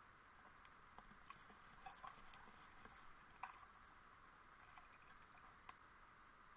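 Near silence underwater: a faint steady hiss with scattered small clicks and ticks, a cluster of them about one to three seconds in and a couple of single ones later.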